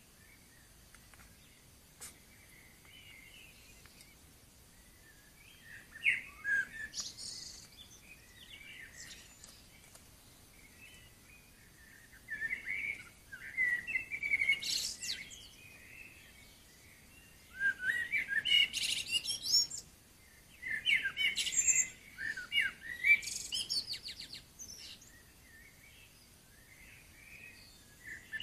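Birds singing at dawn: repeated bouts of quick, high chirping phrases with short pauses between them.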